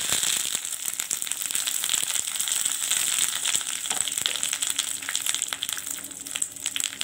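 Fresh curry leaves sizzling in hot oil with mustard seeds and dried red chillies, the tempering (tadka) for coconut chutney. A loud hiss that begins as the leaves go in and slowly eases, with sharp crackles and pops more frequent near the end.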